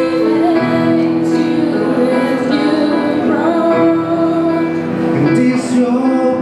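Grand piano played with a woman singing over it, a slow ballad with held notes.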